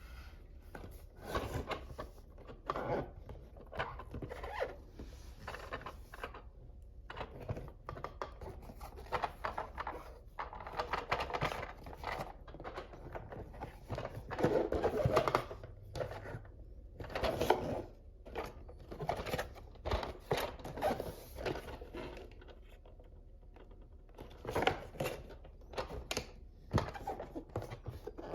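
The packaging of a Plarail toy railroad crossing being opened and handled by hand: a run of irregular noisy rustles, scrapes and light knocks, with a quieter lull a few seconds before the end.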